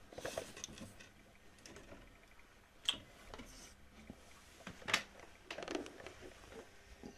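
Faint handling noises as an old wooden dollhouse is turned round by hand, with two sharp knocks, about three seconds in and again about five seconds in.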